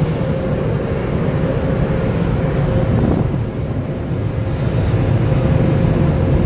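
Automatic tunnel car wash running around the car, heard from inside the cabin: a steady low rumble of spraying water and wash machinery, with a faint steady hum.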